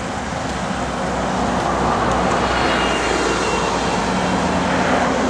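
Road traffic: a steady rush of vehicles driving past.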